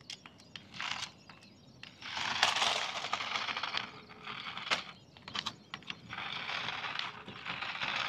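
Small plastic remote-control toys, an RC car and a walking dinosaur, scraping and rattling over gritty, stony ground: irregular spells of rasping crunch with scattered sharp clicks.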